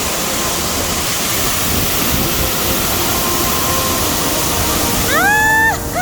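Itirire waterfall's steady rush of falling water, heard close up. Near the end a short high-pitched call rises and holds briefly over it.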